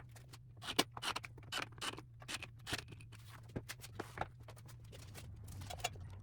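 Irregular light clicks and taps of small hardware and jig parts being handled, over a low steady hum.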